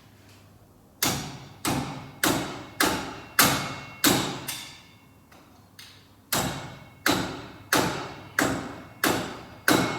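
A hammer strikes metal hard on the rust-seized front wheel bearing hub, about one blow every two-thirds of a second. There are six blows, a pause of about two seconds, then another run of six, each with a short metallic ring.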